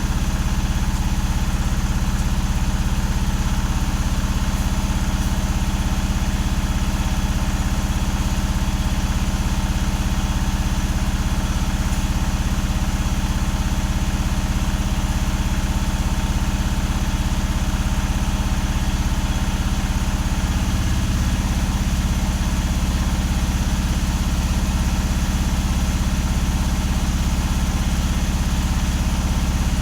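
Mahindra Jeeto BS6 diesel engine running steadily during a forced DPF regeneration. Its note shifts slightly about two-thirds of the way through.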